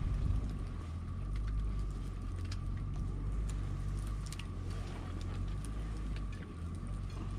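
Wood campfire crackling, with scattered sharp pops, over a steady low rumble.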